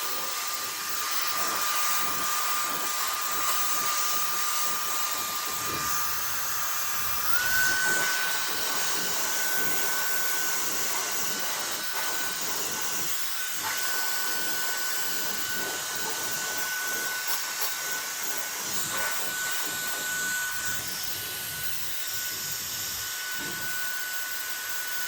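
Cordless electric air duster's brushless turbo fan running: a steady high whine over rushing air. About seven seconds in the whine steps up in pitch as the fan is switched to a higher speed level, and it cuts off at the very end.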